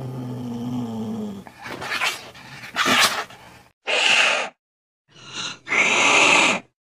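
An angry cat growling low for about a second and a half, then hissing in several short, harsh bursts.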